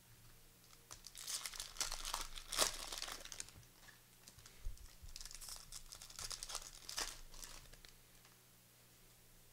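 Trading-card pack wrapper being torn open and crinkled by hand, in two bursts of crackly rustling, the second starting about five seconds in.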